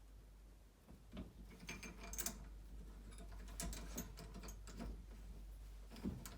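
Irregular clicks and light metallic clinks from hand work on faucet fittings, some with a brief ring, a few strokes a second with small pauses.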